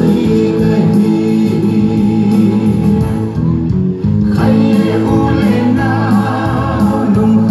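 Music with singing over a steady beat, with a brief lull about four seconds in.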